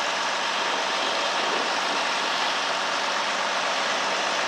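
Stock gas 4x4 pickup truck's engine idling steadily, hooked to the pulling sled before the run.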